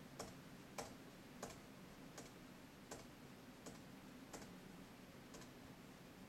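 Faint, evenly spaced clicks, about one every three-quarters of a second, over near-silent room tone.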